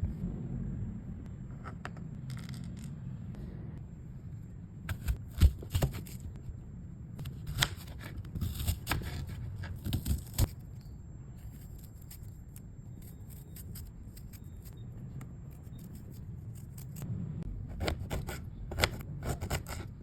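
Kitchen preparation noises: sharp clicks, snips and scrapes of utensils or cutting, coming in three short clusters over a low steady hum.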